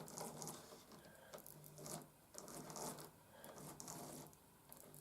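Small electric motor of an old Lima model pannier tank locomotive buzzing faintly in short, stop-start spurts with light clicks, as the engine stutters on the track: a sign that its wheels and pickups are still too dirty to pick up current well.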